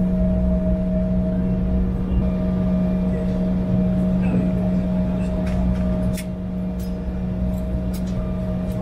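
Steady cabin drone of an Embraer jet taxiing on idling turbofan engines, heard from inside the cabin: a low hum with a few high tones over it. It eases off a little about six seconds in, with a few faint clicks after.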